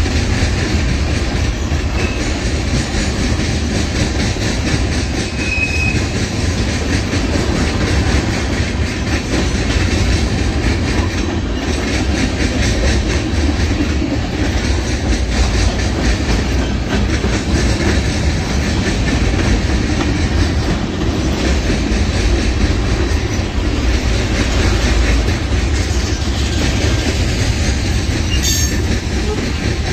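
Freight cars of a passing CN freight train rolling by close up: a steady rumble and rattle of steel wheels on rail, clacking over the rail joints, with a brief faint wheel squeal now and then.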